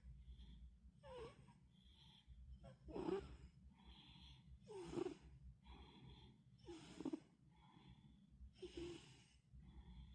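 A cat snoring softly, a wheezy snore on each breath about every two seconds, with fainter breaths in between.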